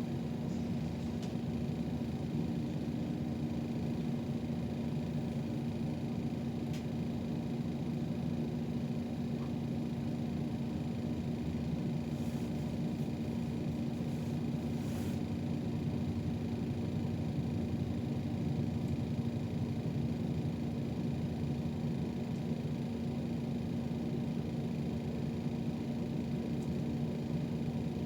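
City bus heard from inside the cabin: a steady rumble of the bus running, with a constant low hum.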